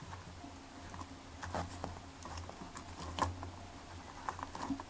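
Faint, scattered small clicks and rubs of fingers handling wet fishing line as a clench knot is drawn tight, over a low steady hum.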